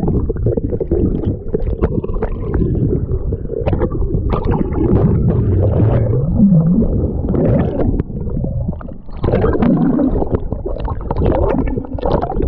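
Lake water sloshing and gurgling against a camera held at the surface and dipped in and out of the water. It sounds muffled and low, as it does with the microphone underwater.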